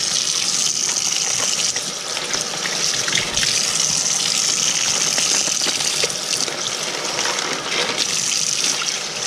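Kitchen sink tap running steadily, water splashing as cleaned small bream are rinsed under it.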